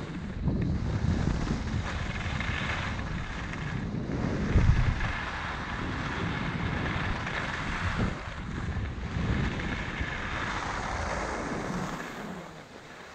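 Wind rushing and buffeting on an action-camera microphone during a ski descent, with the hiss of skis sliding over snow. It dies down about twelve seconds in.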